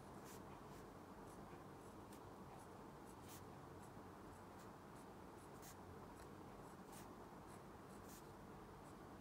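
Faint scratching of a pencil on paper, a run of short separate strokes about one or two a second, over a steady low hiss.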